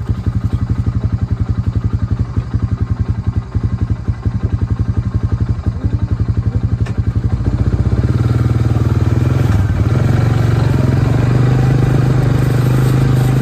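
Four-wheeler (ATV) engine running close to the microphone, first at a low, even putter, then opening up about eight seconds in to a louder, steadier pull as the machine moves off along the trail.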